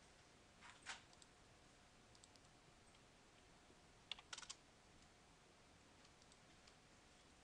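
Faint computer keyboard and mouse clicks in a quiet room. There is a click just under a second in, then a quick run of three or four keystrokes about four seconds in.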